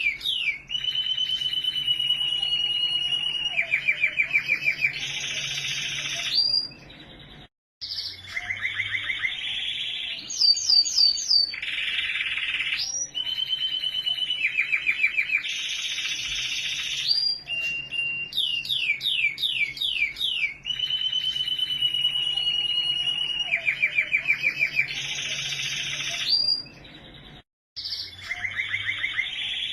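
Domestic canary singing a long song of held whistled notes and fast rolling trills, with two short breaks in the song.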